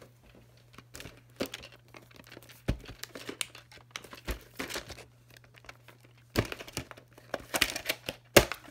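Plastic clamshell VHS cases being handled and set down on a bed: scattered crinkles, rustles and light plastic clicks, busiest in the last couple of seconds. A faint steady low hum runs underneath.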